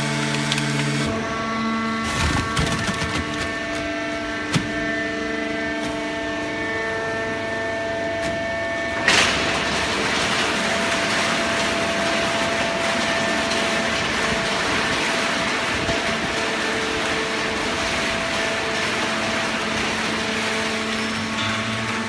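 Fully automatic horizontal waste paper baler running, its hydraulic pump and motor giving a steady hum whose tones shift as the load changes. A single sharp bang comes about nine seconds in, followed by a steady rushing noise.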